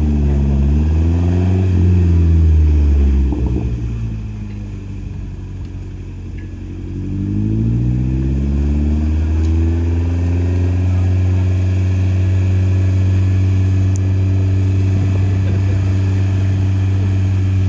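Car engine on a chassis dyno, revving up under load. It lets off about three seconds in and runs quieter and lower. It climbs again from about seven seconds and then holds steady at high revs.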